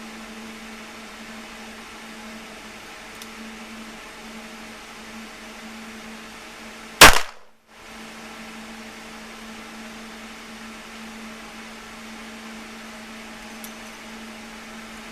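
A single handgun shot about seven seconds in, the loudest thing by far, over a steady low hum.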